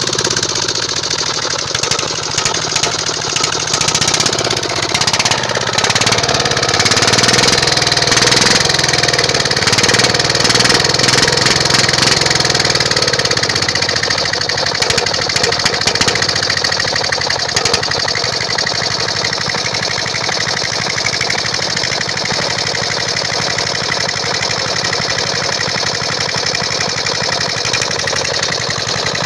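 F170 4 hp single-cylinder diesel engine running with a rapid knocking beat, its speed rising and falling a little and louder in the middle stretch.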